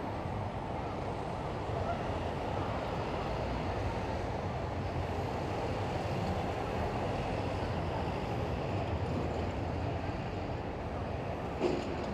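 Steady city street noise of traffic going by, with one short sharp click near the end.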